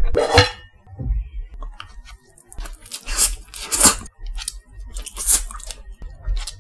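Close-miked mouth sounds of a person eating instant fried noodles: chewing and slurping in short, irregular bursts.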